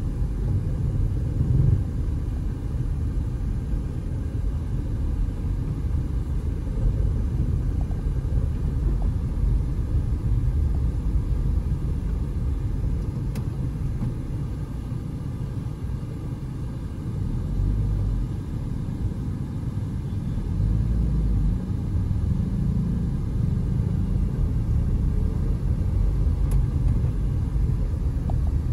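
Low rumble of a car's engine and tyres heard from inside the moving car's cabin, easing off a little about halfway through and filling out again near the end.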